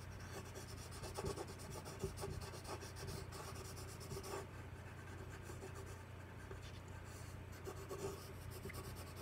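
Colored pencil scratching on paper in a run of long shading strokes.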